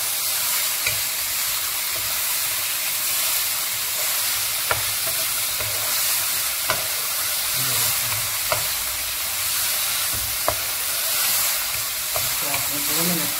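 Chicken strips sizzling in oil in a nonstick kadhai over gentle heat, stirred with a wooden spatula. A few sharp clicks are scattered through the steady hiss.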